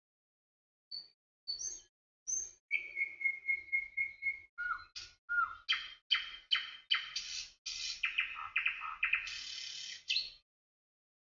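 Songbird calls: a few scattered chirps, then a rapid trill of repeated whistled notes, followed by a busy run of sharp chirps and down-slurred whistles that stops about ten seconds in.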